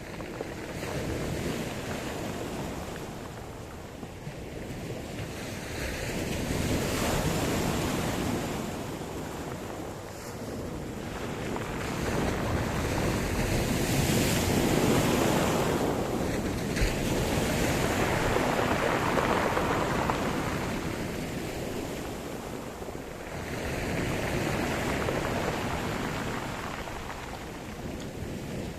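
Sea surf: waves rolling in and breaking, the wash rising and falling in slow surges every several seconds.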